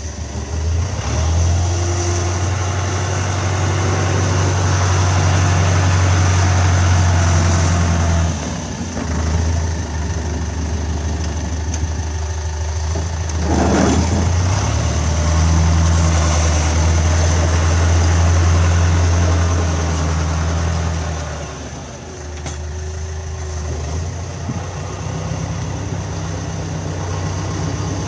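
John Deere 5410 diesel tractor engine running steadily. It gets louder twice, for several seconds each time, and eases back in between. About halfway through there is a short burst of noise.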